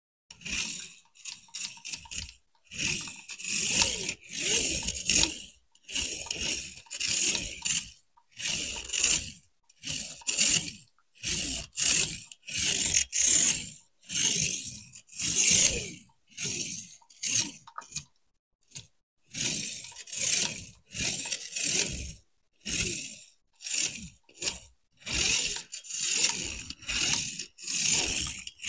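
Packaging of a boxed RC toy car being handled during unboxing: a long run of short crinkling and scraping strokes, one or two a second, with brief silences between them.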